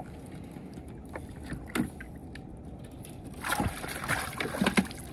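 Water lapping around an aluminium boat with a few light knocks, then, about three and a half seconds in, a splash as a released blue catfish goes back into the river.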